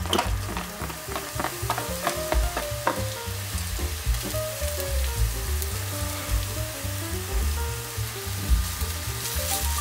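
Sliced green onion and minced garlic frying in hot oil in a nonstick pan: crackling as the pieces land over the first few seconds, then a steady sizzle that grows louder near the end. Soft background music with a bass beat runs underneath.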